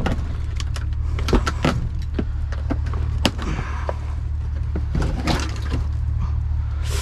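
Aluminium cans and mixed trash clattering and rustling as a trash can is rummaged through, irregular clicks and knocks over a steady low hum.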